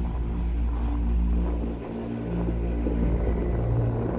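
Low, steady rumble of a ship's engine heard from on board, mixed with wind and water noise.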